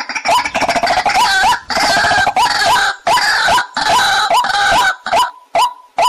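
White-breasted waterhens calling: short repeated calls about two to three a second that thicken into an overlapping chorus of several birds from about half a second in, thinning back to single calls near the end.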